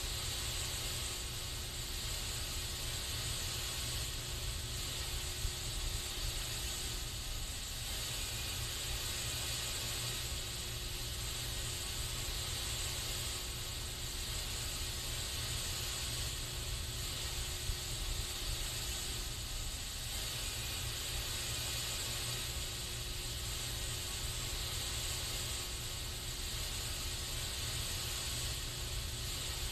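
Continuous hiss of an aerosol spray can, swelling and easing slightly every few seconds, over a steady low rumble.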